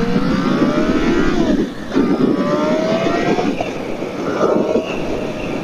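Honda CBR600RR's inline-four engine with an Akrapovič exhaust accelerating under way: the pitch climbs, breaks briefly at a gear change about two seconds in, climbs again, then settles a little lower. Wind rushes over the microphone underneath.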